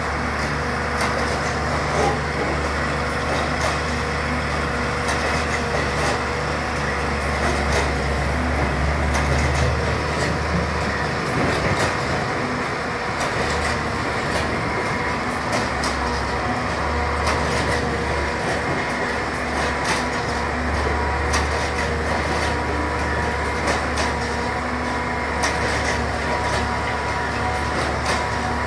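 Engine of a track-laying machine placing concrete railway sleepers, running with a steady low drone and faint steady whining tones above it, with scattered light clicks and knocks.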